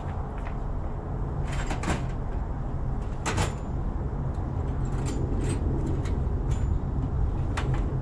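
Scattered clicks and knocks of tools and metal parts being handled, the sharpest about three and a half seconds in, over a steady low hum.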